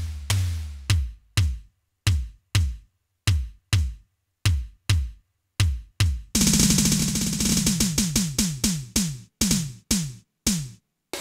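Roland TD-8 electronic drum module being played: single drum hits, each dropping in pitch, coming in pairs about two a second. About six seconds in, a fast roll of hits starts with a bright hiss over it, then eases back to separate hits.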